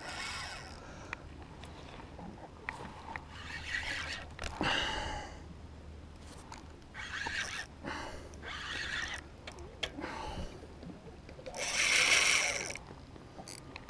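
Spinning reel and line under load from a hooked salmon: irregular scraping, rasping bursts of the reel's drag and retrieve, the loudest burst near the end.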